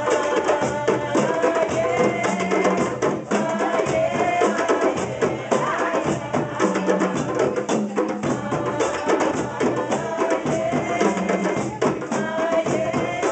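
A group of djembe hand drums playing a steady, fast rhythm together, with a woman's voice singing a chant over it through a microphone.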